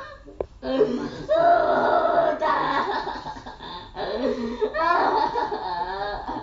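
A person's loud, wordless vocalizing in several long stretches with a wavering pitch.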